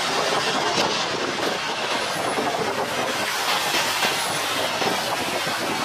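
Jet engines of a taxiing Airbus A320-family airliner running at low taxi power: a steady, even rushing hiss.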